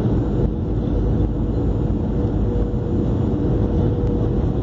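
Cabin noise inside a Boeing 737-500 on approach to land: a low, steady rush of its CFM56-3 engines and airflow past the fuselage, with a faint steady hum in it.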